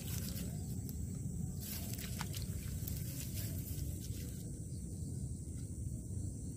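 Outdoor ambience: a steady low rumble with a steady high insect drone over it, and a few faint ticks about two seconds in.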